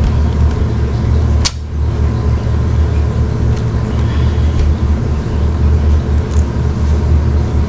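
Steady low rumble, like a running engine or machine, with a single sharp knock about one and a half seconds in.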